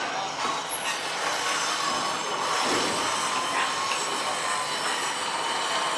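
Steel wheels of a boat-launching cradle grinding along slipway rails under a large wooden fishing boat, with a thin wavering squeal over a steady rumble.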